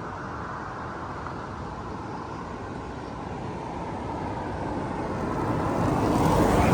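A car passing on the road, its engine and tyre noise growing steadily and peaking as it goes by near the end.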